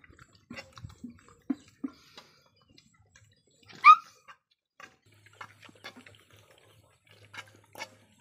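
Puppies eating from metal pots: a run of short wet lapping and chewing smacks and clicks, with one loud, short, high yelp about four seconds in.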